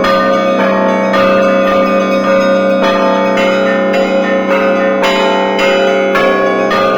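Russian Orthodox church bells rung by hand by a bell-ringer: quick, dense strikes of the small high bells over the steady hum of larger bells, all sounding without a break.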